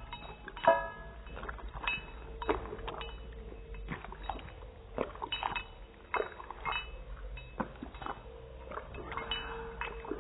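Small dog lapping gravy from a plate: irregular wet licks with sharp clicks and clinks of tongue and teeth against the plate.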